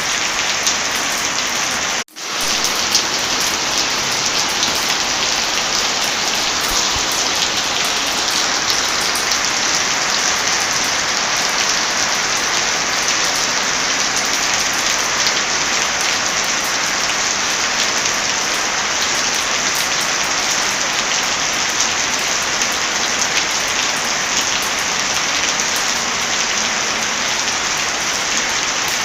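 Heavy rain falling steadily. The sound cuts out for a moment about two seconds in, then returns at once.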